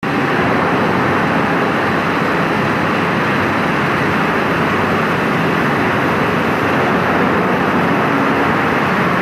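Steady, loud machinery noise of a running production line, with boards carried past under the inkjet print head.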